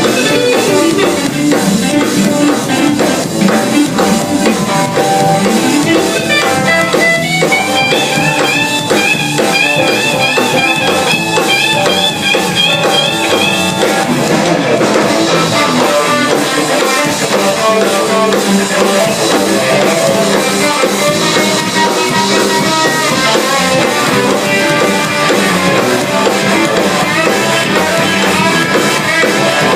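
Live band jamming: electric guitar lines over a drum kit playing a steady beat, with a repeated high guitar figure between about 7 and 14 seconds in.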